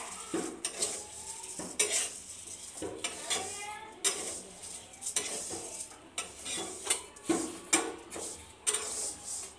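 A metal spoon scraping and clinking against a steel wok as vermicelli is stirred and roasted over a gas flame, with irregular strokes about once a second over a steady sizzle.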